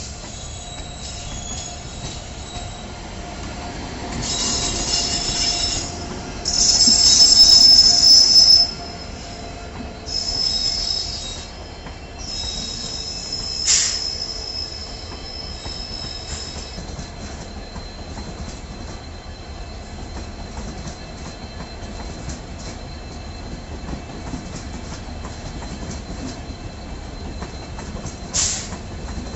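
Indian Railways express train hauled by a WAP7 electric locomotive, running on the track with a steady rolling rumble. High-pitched wheel squeal comes in several bouts between about 4 and 17 seconds in, the loudest around 7 to 8 seconds. A sharp click sounds near the middle and another near the end.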